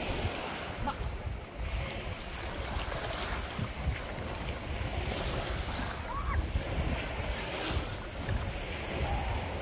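Sea waves washing against a stone pier, with wind buffeting the microphone as a low rumble.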